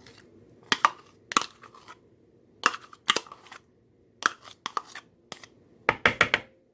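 Yogurt being scooped with a one-cup measuring cup: a series of short, sharp scrapes and knocks of the cup against the container and bowl, about a dozen, with a quick cluster near the end.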